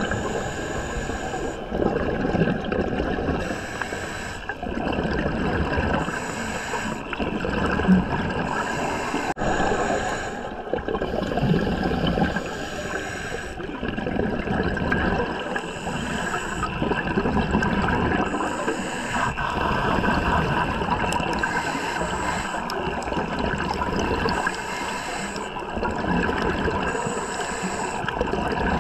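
Scuba breathing through a regulator underwater: a hiss that comes and goes every two to three seconds, alternating with gurgling exhaled bubbles.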